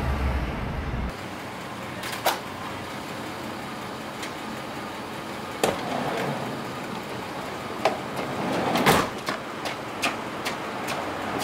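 Outdoor street ambience; a low rumble cuts off about a second in. Scattered sharp knocks and clicks follow, and the loudest is a longer scraping clunk about nine seconds in, typical of a van door being handled.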